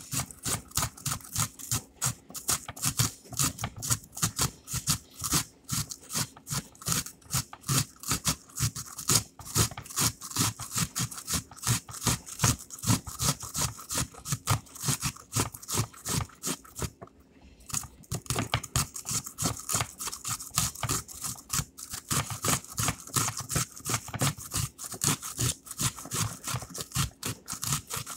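Onion being rubbed up and down a stainless steel box grater: quick rhythmic rasping strokes, about three a second, with a short pause about 17 seconds in.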